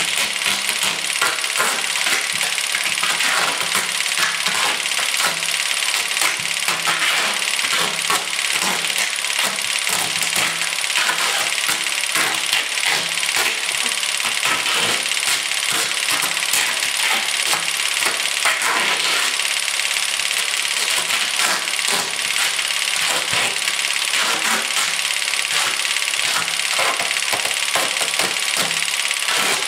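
Adhesive tape being pulled off the roll and wrapped around a head: a continuous crackling, ripping noise full of dense little clicks.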